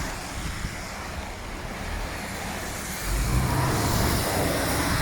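A car driving along the road, its engine and road noise a steady low rumble that grows louder about three seconds in.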